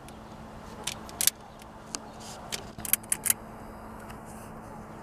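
Scattered sharp metallic clicks and clinks of hand tools and wire connectors being handled during car-stereo wiring, a few single clicks and then a quick cluster, over a steady low hum.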